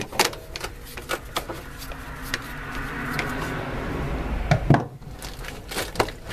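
Phillips screwdriver loosening the screw of a metal band clamp on a washing machine's rubber tub-to-drain boot: a run of small clicks as the screw turns. Then rubbing and handling noise, with two knocks about four and a half seconds in.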